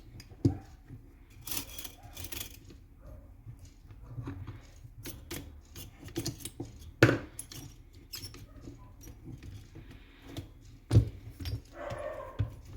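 Small metal parts and tools of an airsoft M14 clicking and knocking as it is taken apart by hand, with three louder knocks: about half a second in, about seven seconds in and about eleven seconds in.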